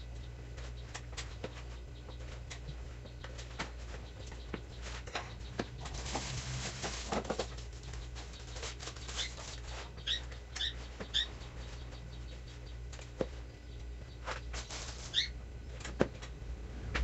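Hands kneading and squeezing crumbly cornstarch-and-cream dough in a plastic bowl: soft scattered clicks and rubbing, denser about six to seven seconds in. A few short high chirps come about ten seconds in and again near fifteen seconds, over a steady low hum.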